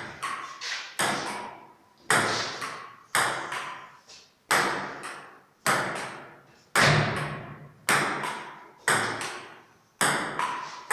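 Table tennis rally: the celluloid ball knocking back and forth, paddle hits and table bounces in pairs at about two knocks a second, each knock ringing out in an echoing bare room.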